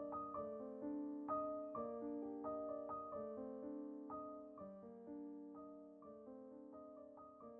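Soft background piano music, a gentle melody of single notes and chords.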